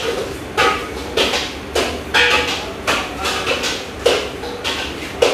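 Repeated sharp knocks, roughly two a second and not quite even, some with a brief ringing after them, over a steady low hum.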